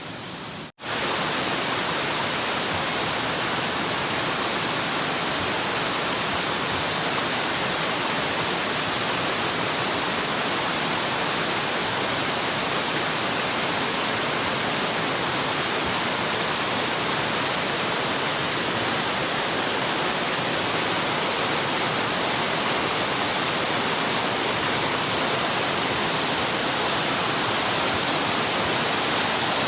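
Waterfall: a steady rush of falling water, loud and even, cutting in abruptly just under a second in.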